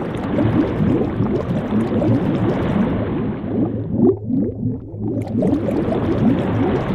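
Bubbling, gurgling liquid sound effect: a dense, continuous run of short wet blips over a soft hiss that thins out for about a second near the middle.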